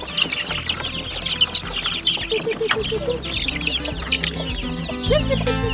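A brooder full of young turkey poults peeping: many quick, high, falling chirps overlapping without pause. Plucked guitar music comes in about two seconds in and grows louder near the end.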